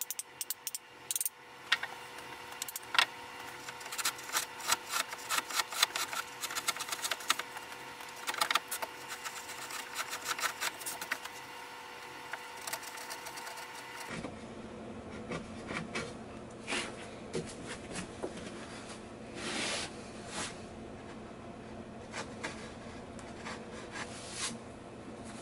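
Hand-tool work on a softwood board on a wooden workbench while a cut line is marked out: a dense run of light wooden ticks and scratchy clicks, then after an edit about halfway through, sparser taps and a brief rubbing sound.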